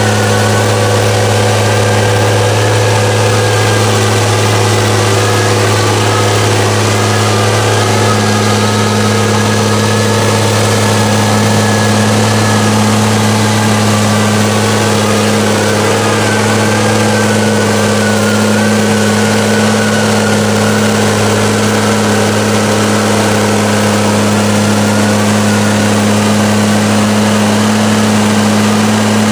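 Dodge Ram mega mud truck's diesel engine running at steady high revs, a constant deep drone with a higher wavering whine above it.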